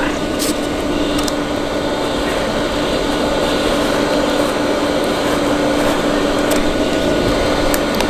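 Chinese diesel air heater running, its blower fan giving a steady whirring hum with one constant tone. A few light clicks sound over it.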